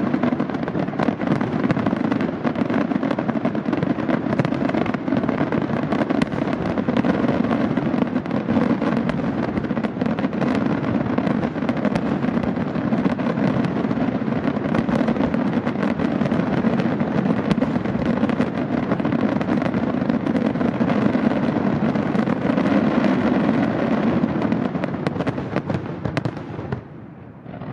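Aerial fireworks going off in a dense, continuous barrage of bangs and crackling, which drops away suddenly about a second before the end.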